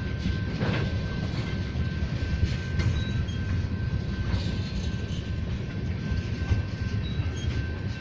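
Loaded oil tank cars of a freight train rolling past, a steady low rumble with irregular clicks of the wheels over the rail joints and a thin steady high whine.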